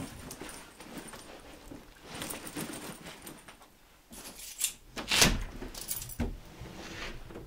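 A backpack being picked up and shouldered: rustling fabric and straps with light jingling, and a sharp knock about five seconds in.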